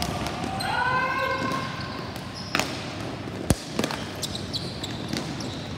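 Sharp knocks and clacks of sticks and ball on a ball hockey rink, several scattered hits, the loudest crack about three and a half seconds in. A player's shout rises over the play near the start.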